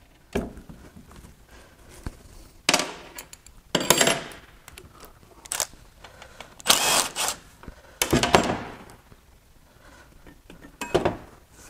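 Cordless power wrench running in short bursts, about seven times, to undo the oil pickup tube bolts on a Dodge Viper V10 block, with knocks of metal parts and tools between runs.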